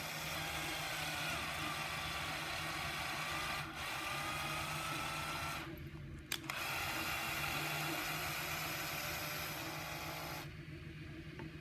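Cordless drill running slowly to drive a 6 mm tap into a 3D printed PLA bracket, cutting threads. The motor whine rises slightly in pitch, stops briefly with a click a little before halfway, then runs again and stops about a second before the end.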